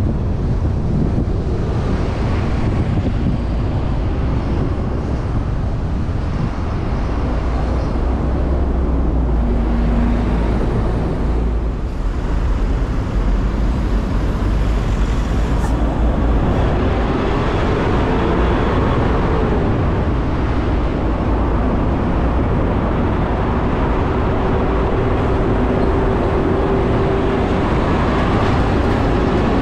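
Steady road and traffic noise from a car driving along a busy city boulevard: a low rumble of tyres and engines, with faint engine hums from nearby vehicles.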